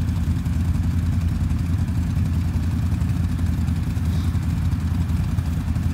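Can-Am ATV engine idling steadily, a low even rumble that does not rev.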